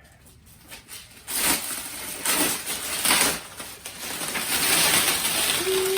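Plastic wrapping and cardboard packaging of a compressed, rolled mattress rustling and crinkling as it is handled and pulled from its box, in several loud swells and then steadily. Near the end a short falling tone is heard.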